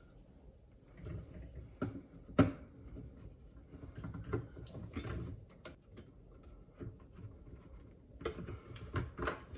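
Hard clicks and knocks of the dishwasher's lower wash arm being handled as its lock is turned and the arm is worked loose. The loudest knock comes about two and a half seconds in, with a quick run of clicks near the end.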